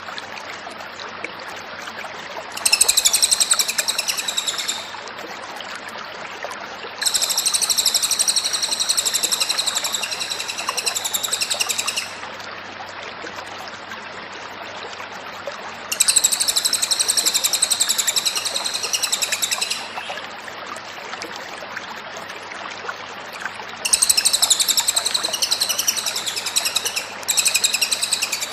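Cililin bird singing in long phrases of fast, high trilling notes, five bursts in all, separated by pauses of a few seconds with steady background hiss.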